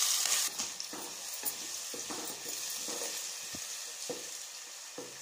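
Chopped onions sizzling in hot ghee in a pot while a wooden spoon stirs them, scraping about twice a second. The sizzle is loud at first, just after the onions go in, and settles to a steady lower hiss about half a second in.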